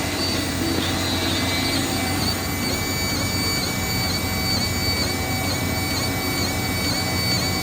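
Industrial machinery on a drip irrigation pipe line running steadily, with a fiber laser marker fitted to it: a constant hum under high whining tones that waver slightly at regular intervals.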